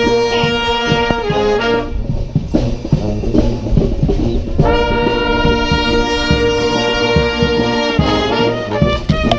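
Street brass band playing: trombones, trumpets and saxophones hold loud sustained chords over a steady drum beat. The horns mostly drop out about two seconds in, leaving the drums, then come back in a long held chord and break into shorter notes near the end.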